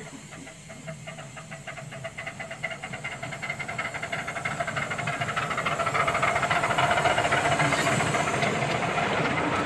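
Miniature steam locomotive working, its exhaust beats coming in a rapid, even rhythm with a steady hiss of steam. It gets louder over the first six seconds or so, as if approaching, and then holds steady.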